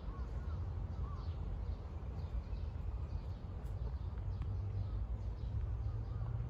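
Outdoor ambience with a steady low rumble, and a crow cawing a couple of times near the start.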